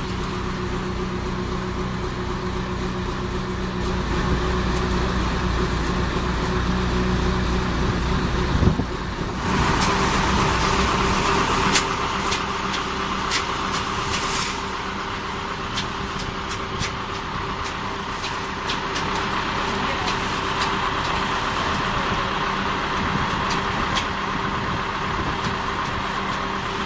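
Engine of a reed-harvesting boat running steadily. About nine seconds in, the sound changes to the boat's conveyor unloading cut reeds, a steady machine noise with scattered sharp clicks and snaps.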